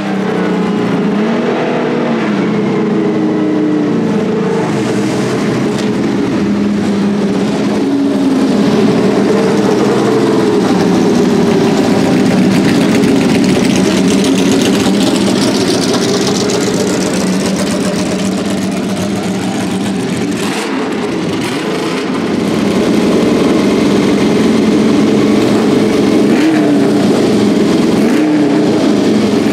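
1.5-litre V6 engines of Ferrari 156 F1 'Sharknose' racing cars running at low revs as the cars roll slowly. The engine note rises and falls with short throttle blips and grows louder about 8 seconds in and again near 23 seconds.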